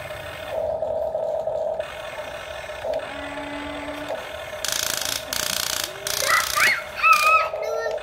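The small electric motors of a radio-controlled toy excavator whine in short spells, starting and stopping as the boom and arm move. Near the end there are two brief high squeaky calls with a rising pitch.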